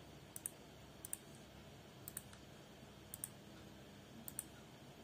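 Faint computer mouse clicks, about one a second, each a quick double click of button press and release, over a low room hiss.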